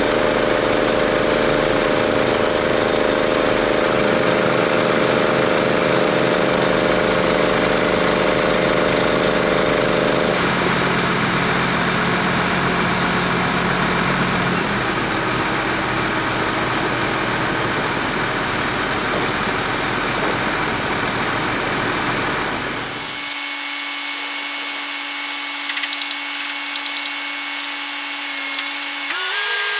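Truck-mounted crane's diesel engine running steadily under load while it hoists a wooden roof truss, with a rough, noisy rush over it. About two-thirds of the way through, the low rumble cuts out suddenly and only a thinner noise with a few steady tones is left.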